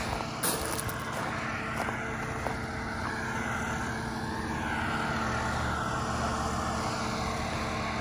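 A steady mechanical hum, like an engine running, with a few held low tones; it grows slightly louder about halfway through.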